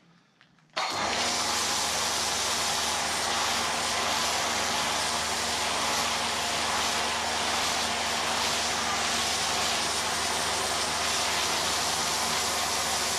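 Kärcher electric pressure washer starting suddenly about a second in and running steadily: a motor-and-pump hum under the hiss of an MTM foam cannon spraying foam.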